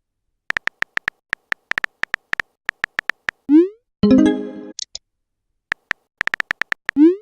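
Synthesized background music made of quick irregular ticks, a rising whooping glide, and a short electronic chord with high blips, the pattern coming round twice.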